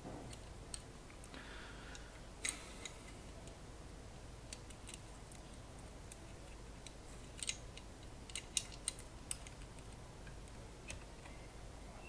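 Scattered small clicks and taps of metal and plastic parts being handled as a hammer solenoid is fitted by hand into a typewriter carriage, with a little cluster of clicks in the second half.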